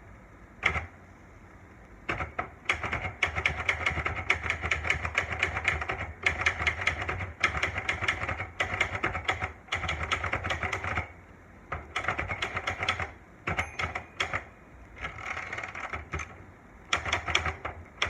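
Olivetti Lettera 92 manual portable typewriter being typed on: rapid keystrokes in bursts with short pauses between them, and a single keystroke near the start.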